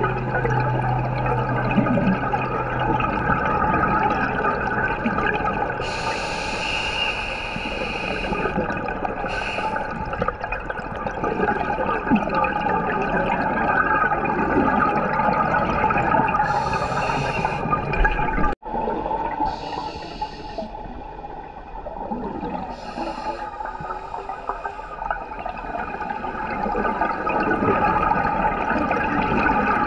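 Scuba diver breathing through a regulator underwater: hissing inhalations every few seconds and bubbling exhalations.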